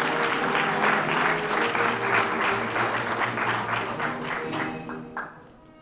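Audience applauding over background music; the clapping fades out about five seconds in, leaving the music.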